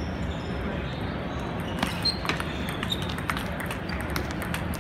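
Table tennis rally: a quick run of sharp clicks, the ball struck by the rackets and bouncing on the table, starting about two seconds in. Under it, the steady background noise of a large hall with other games going on.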